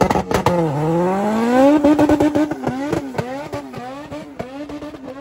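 A tuned car launching hard. The engine note drops, climbs steadily for about a second, then holds high and stutters about three times a second with sharp cracks, getting quieter near the end as the car pulls away.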